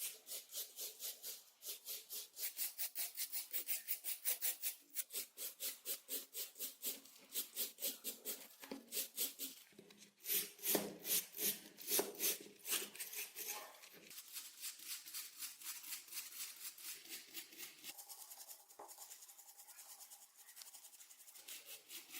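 Rapid back-and-forth strokes of an abrasive rubbing on steel by hand, about three or four strokes a second. The strokes grow louder and slower for a few seconds in the middle, then carry on more softly.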